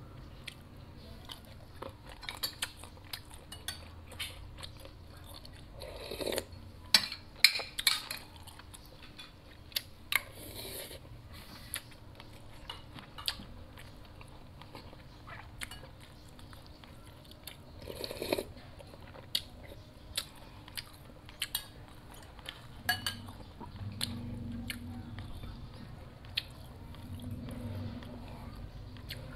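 Close-up eating sounds: chewing on shrimp, with scattered sharp clicks and clinks of a metal spoon against a china bowl and plate, the loudest clicks coming about seven to eight seconds in.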